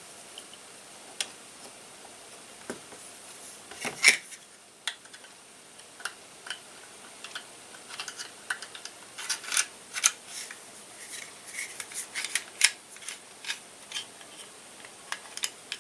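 Metal and polymer parts of a Glock 43 pistol clicking and scraping as the recoil spring and slide are fitted back onto the frame. Scattered sharp clicks, one louder about four seconds in, then a quicker run of clicks in the last several seconds.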